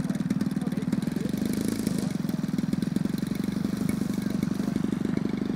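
Engine of a 1/3-scale Cub model plane with a 100cc engine, idling steadily on the ground.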